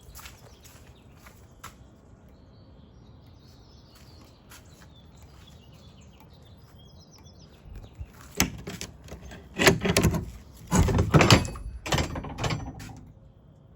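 A few faint clicks, then about eight seconds in a run of loud, irregular knocks and thuds lasting some five seconds.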